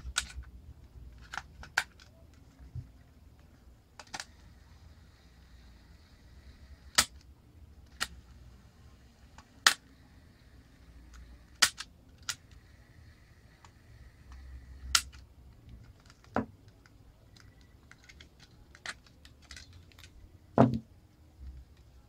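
Scattered sharp clicks and taps of AA batteries and the plastic casing of an opened portable cassette player being handled, about a dozen in all, the loudest a duller knock near the end.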